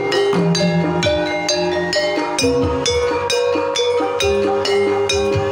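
Javanese Banyumasan gamelan ensemble playing a tayub gending: kendang hand drums beating over a dense pattern of struck metal kettle-gongs and keyed instruments, with long ringing notes held over the strikes.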